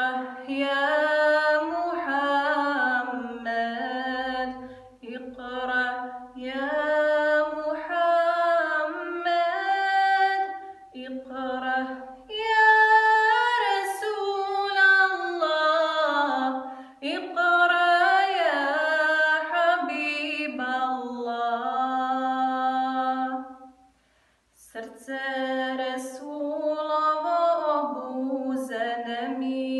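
A woman singing a kasida, a Bosnian Islamic devotional song, solo and unaccompanied, with long held notes ornamented by pitch bends. She breaks off briefly about 24 seconds in, then goes on.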